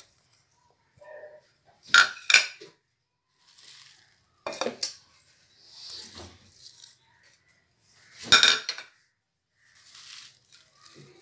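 A ceramic plate knocking against the rim of a stainless steel mixer-grinder jar in three short clusters of sharp clinks as green herbs are tipped in, with soft rustling of the leaves between them.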